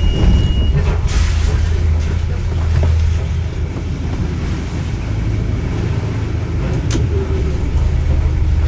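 Motorboat's inboard engine running steadily at low revs, a loud, even low rumble. A short hiss about a second in and a single sharp click near the end.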